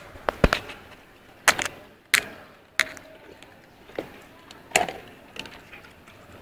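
Close handling noise: an irregular string of about ten sharp knocks and crinkles, from a plastic bag and the phone being handled right at the microphone.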